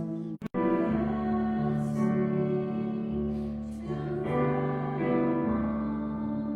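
A hymn played on keyboard with singing: slow held chords over a stepping bass line. The sound cuts out briefly about half a second in.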